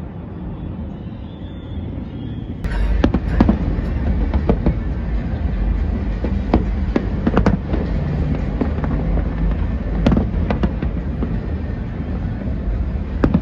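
Fireworks bursting: a rapid, irregular series of sharp bangs and crackles over a deep rumble, with music playing alongside. About two and a half seconds in the sound turns suddenly fuller and louder.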